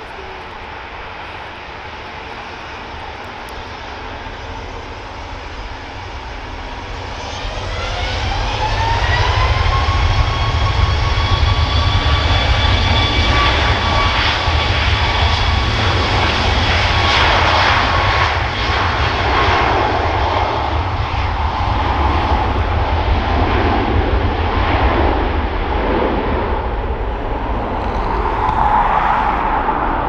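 Jet airliner's engines spooling up to high thrust: a rising whine that climbs for about two seconds, levels off and then gives way to a loud, rough engine roar. Strong wind rumbles on the microphone throughout.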